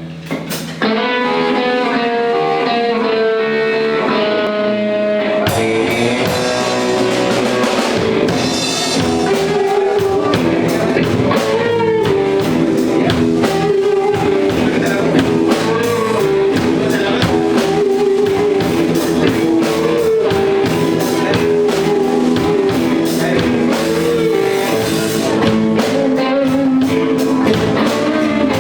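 Blues song intro: a guitar plays a run of single notes alone, then drums and the rest of the band come in about five seconds in and play on together.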